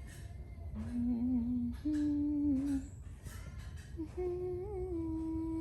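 A person humming three held notes, each wavering slightly in pitch, the last one the longest, over a low steady rumble.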